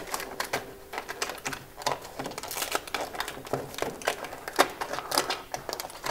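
Metal foil duct tape being wrapped and pressed around a flexible aluminium duct at its collar joint: a run of irregular crinkling and crackling, with quick clicks from the foil and the ribbed duct.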